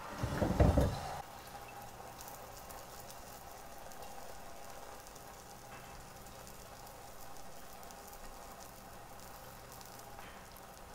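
Food frying in a pan on medium heat, a soft steady sizzle with fine crackles. A short, loud clatter of handling comes in the first second.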